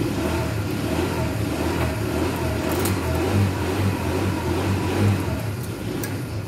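A motor vehicle's engine running close by, a steady low hum that dies away over the last second or so.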